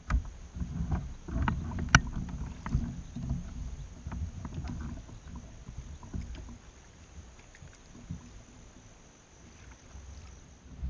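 Irregular low thumps and knocks of gear and body against the plastic hull of a Hobie Mirage Outback fishing kayak, with scattered clicks and one sharp click about two seconds in. The knocking thins out after about six seconds.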